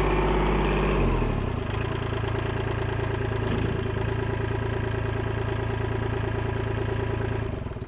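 Compact diesel tractor engine coming down from higher revs to idle about a second in, idling steadily, then stopping near the end.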